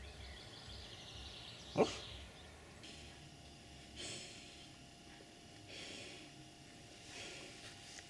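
Sleeping Irish wolfhound puppy breathing softly, airy breaths about every one and a half seconds, with one short sharp snort about two seconds in.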